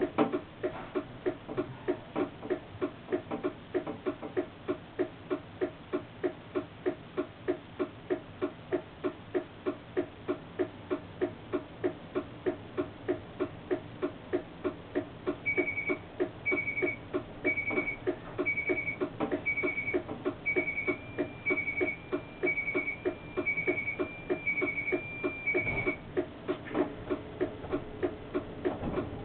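Steady rapid clicking of a relay in a tram's driver's cab, about two to three clicks a second. About halfway through, a high electronic beep joins it, repeating about once a second for some ten seconds. Both stop shortly before the end.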